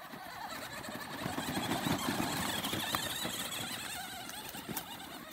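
Radio-controlled monster truck's motor and drivetrain whining as it drives over grass and dry leaves, growing louder over the first two seconds and then easing off a little.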